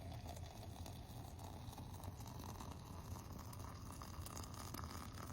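Boiling water being poured into a French press over the tea herbs: a faint, steady pour whose pitch rises slowly as the press fills.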